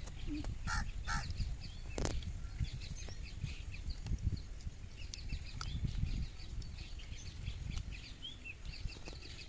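Birds chirping and calling, many short high chirps throughout, with two louder calls about a second in.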